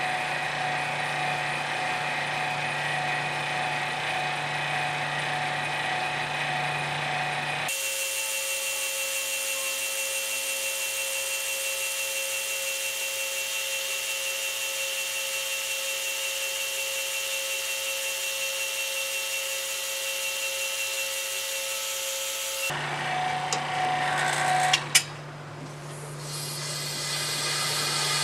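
Two-stage vacuum pump running steadily as it pulls a vacuum on the oven chamber, with a long stretch in the middle where the sound is sped up and higher in pitch. Near the end there are two sharp clicks, then a rising hiss of air rushing back into the chamber as the vacuum is released.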